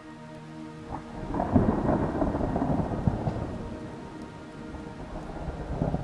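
Thunder rumbling: a deep roll swells in about a second in, slowly dies away, then builds again near the end.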